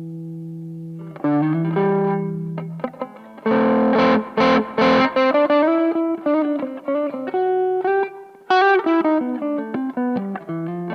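Electric guitar played through a Boss OD-2 Turbo OverDrive pedal: a held chord rings out, then a few hard-strummed chords about three and a half seconds in, followed by single-note phrases with another chord stab a little past the middle.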